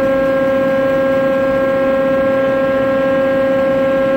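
Tarus CNC gun drill running under power: a loud, steady machine hum with a clear, unchanging whine, the sound of its hydraulic pumps and drives running.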